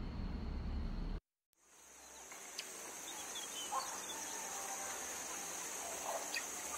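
Background music cuts off abruptly about a second in. After a brief silence, a steady, high insect chorus fades in, with a few faint bird chirps.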